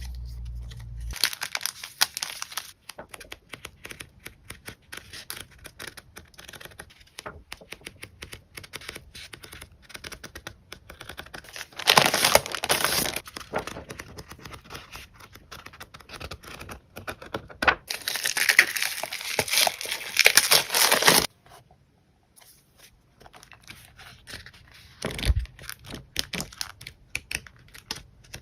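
Packaging and paper crinkling and tearing as packs of stickers and material paper are handled and opened: steady small crackles, with a louder stretch of tearing about twelve seconds in and another from about eighteen to twenty-one seconds. A soft thump comes near the end.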